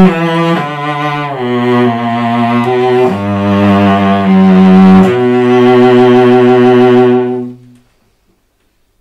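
Solo cello bowed in a slow phrase of long sustained notes, at times two notes together. It swells louder about three seconds in, a crescendo made by adjusting bow weight together with bow speed, and the last note dies away well before the end.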